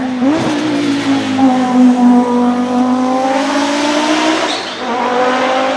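Audi 90 Quattro IMSA GTO race car's 2.2-litre twin-cam five-cylinder engine running hard at high revs, its pitch held fairly steady and sagging slightly, then dipping briefly about four and a half seconds in and climbing again.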